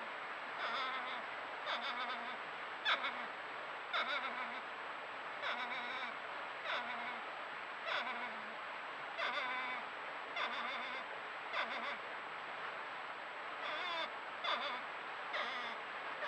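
North American porcupines vocalizing: a series of short, wavering, whining calls at about one a second, over a steady hiss. The uploader thinks these could be siblings, with one trying to be the boss.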